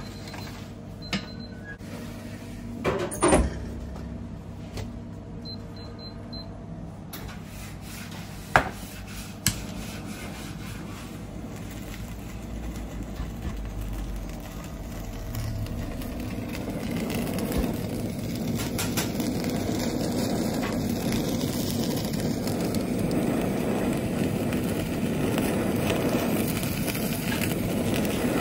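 A metal baking tray knocks against a wooden counter a few times. Then a handheld gas kitchen torch hisses steadily, louder in the second half, as its flame browns the topping on cut pieces of bread.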